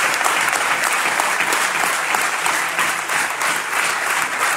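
Large indoor audience applauding: dense, steady clapping from many hands that eases slightly near the end.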